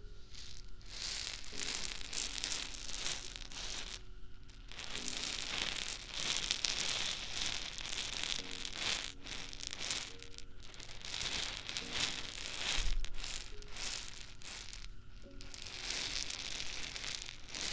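Rapid crinkling and rattling of a handled ASMR prop in long stretches with brief pauses, over quiet background music.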